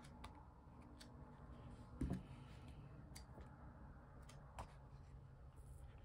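Faint handling of a paper sticker book as its pages are turned: a soft thump about two seconds in, with a brief paper rustle after it, amid scattered faint ticks and a low hum.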